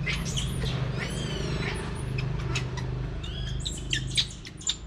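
Baby macaque calling in high-pitched squeaks: one rising-and-falling squeal about a second in, then a quick run of short squeaks near the end as it is pulled off the curtain.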